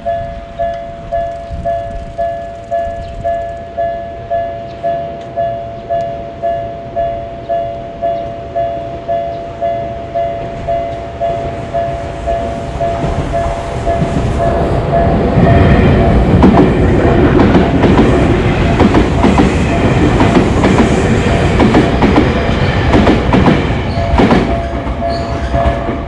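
Railway level-crossing warning bell dinging in a steady two-pitch repeat. About halfway through a train passes close by: its rumble and wheel clatter swamp the bell, which comes back through near the end.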